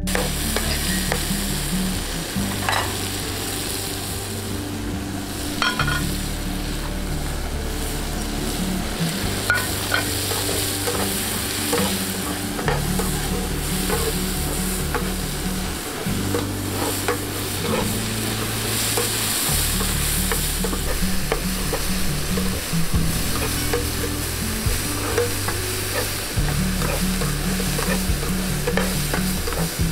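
Diced tomatoes and chopped scallions sizzling in hot oil in a frying pan, stirred with a metal slotted turner that scrapes and clicks against the pan now and then.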